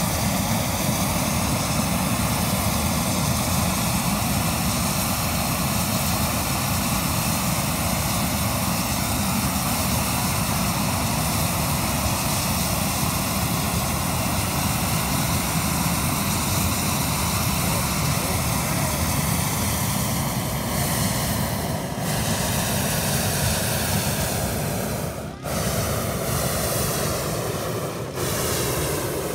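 Hot air balloon's propane burner firing, a loud steady roar. It breaks off briefly twice near the end as the balloon lifts off.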